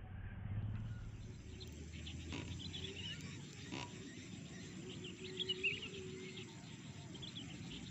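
Faint outdoor marsh ambience: scattered high chirping calls over a low steady rumble, with two soft ticks.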